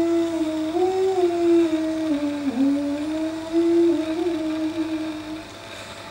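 A woman's unaccompanied voice singing a naat, an Islamic devotional hymn, in a slow, drawn-out melody of long held notes that slide gently between pitches; the phrase ends about five seconds in.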